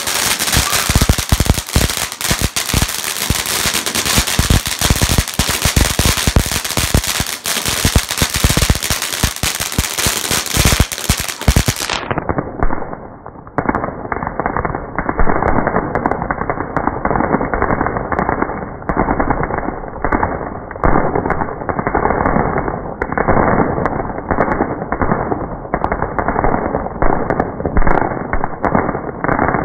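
Firecrackers and fireworks going off in a dense, rapid crackle of pops that doesn't let up. About twelve seconds in, the sound turns duller and more muffled, the popping still continuing.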